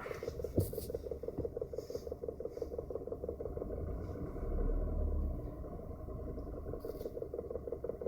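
BMW F30 320i engine idling when fully warm, with a fast, even knock running through the idle: the knock the owner is trying to track down. A brief low rumble swells and fades about halfway through.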